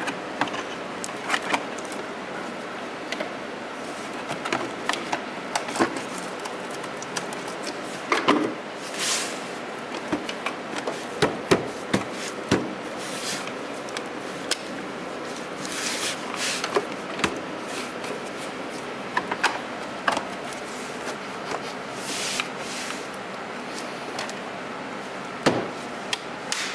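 A Mercedes-Benz engine's plastic airbox and rubber intake duct being fitted back into place by hand: scattered clicks and knocks of hard plastic, with a few short scraping rubs, over a steady background noise.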